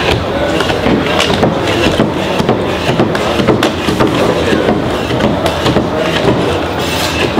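Irregular knocks and scrapes from carpet-fitting tools as carpet is stretched and pressed onto gripper pins on a stair winder, over a steady hall din.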